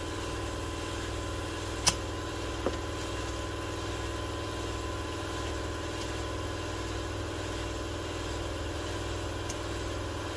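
A motor runs steadily with an even hum. A sharp click comes about two seconds in, and a lighter one shortly after.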